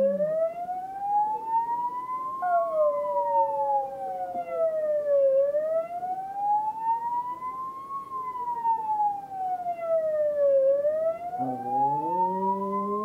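An emergency-vehicle siren wailing in slow, even rises and falls, with a cocker spaniel howling along to it: one falling howl a couple of seconds in, and a rising howl that starts near the end.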